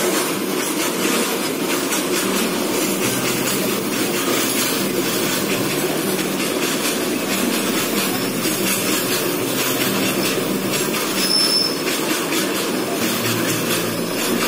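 Goods train of covered box wagons rolling past close by: a steady rumble and rattle of wagon wheels on the rails with clickety-clack over the rail joints. A brief high wheel squeal comes about three-quarters of the way through.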